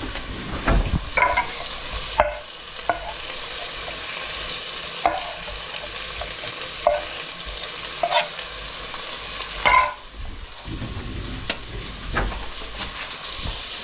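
Chopped smoked bacon frying in a pan with a steady sizzle. It is stirred, and the utensil knocks and scrapes against the pan about nine times. The sizzle dips briefly about ten seconds in.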